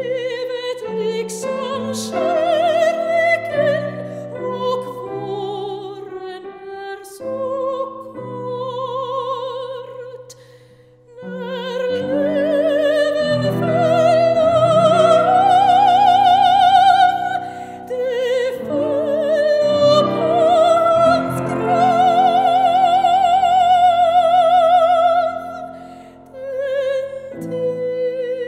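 Operatic soprano singing with grand piano accompaniment. Short phrases first, then after a brief pause near the middle the voice grows louder and holds long notes with a wide vibrato.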